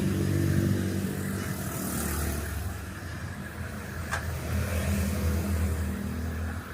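An engine running, its speed rising and easing off, with a single sharp click about four seconds in.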